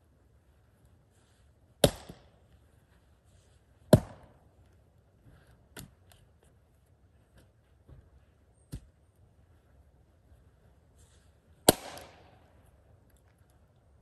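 Axe splitting firewood rounds on a chopping block: three loud, sharp strikes at about two, four and twelve seconds in, with lighter wooden knocks near six and nine seconds.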